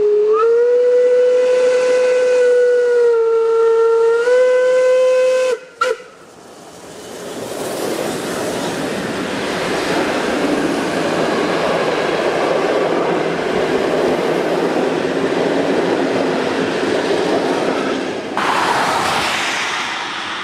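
A steam locomotive's whistle blows one long blast for about five seconds, its pitch dipping and rising again before it cuts off with a short final toot. The steam-hauled train then rolls past, a steady rush of running and rail noise, with a short burst of hiss near the end.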